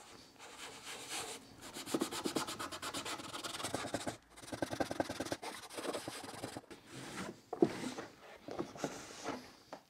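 Microfiber cloth rubbed in quick back-and-forth strokes over the plastic wheel hub of a Festool CT shop vacuum, working in a polishing cream. The rubbing pauses briefly twice.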